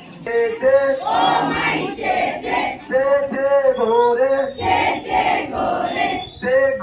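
A large crowd of school students calling out together in unison, in a rhythmic, sing-song group chant.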